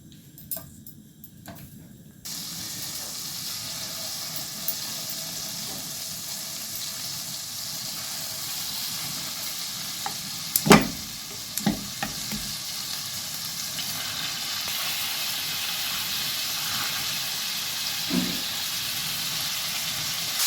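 Chicken pieces frying in butter in a pan: a steady sizzle starts suddenly about two seconds in and grows slightly louder. A few sharp knocks sound over it, the loudest about halfway through.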